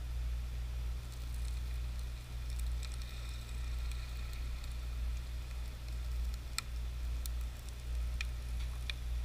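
Faint sizzling and a few sharp cracks from a RAM stick dipped in molten aluminum, over a steady low hum.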